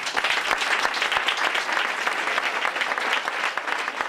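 Audience applauding a poetry reading: many hands clapping in a steady, dense patter that begins suddenly just before and continues throughout.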